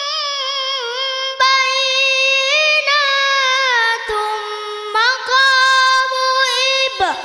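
A boy reciting the Quran in the melodic tilawah style into a microphone. He holds long, ornamented notes that turn up and down in pitch, with a few short breaks for breath.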